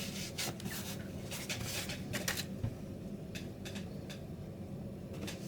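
Scattered light clicks and rustles of small objects being handled, over a faint steady low hum.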